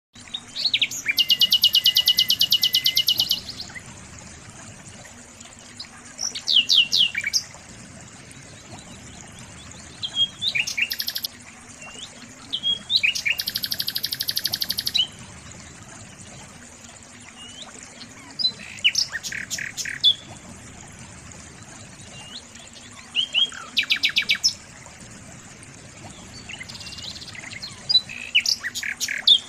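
A songbird singing in about seven separate phrases of fast trills and short gliding chirps, each lasting one to three seconds. The loudest is a long rapid trill near the start. The song sits over a steady background hiss.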